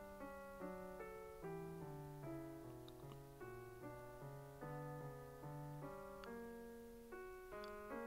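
Quiet background piano music: a slow run of held notes over a low bass line.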